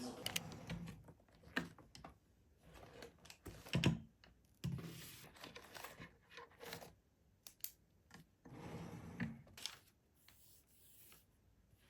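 Close-up handling sounds: scattered clicks and rustling swishes, with a soft knock a little before four seconds in.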